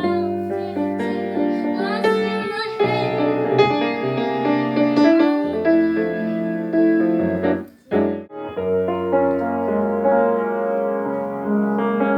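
Instrumental music with keyboard chords to the fore and no singing; it drops out briefly about two-thirds of the way through, then carries on.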